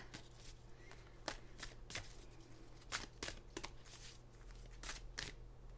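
A deck of oracle cards being shuffled and handled: a scatter of faint, quick card flicks and taps at uneven intervals.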